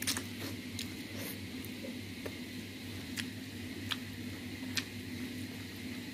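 Eating a bowl of ramen with wooden chopsticks: scattered short clicks and taps from the chopsticks and bowl, and small mouth sounds of chewing, over a steady low hum.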